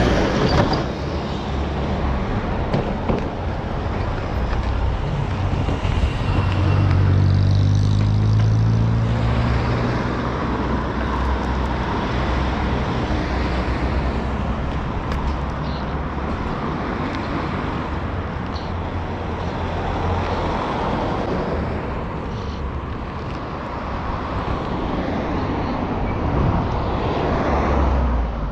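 Road traffic passing close by. About seven seconds in, a vehicle's engine rises in pitch as it passes, and another vehicle goes by near the end.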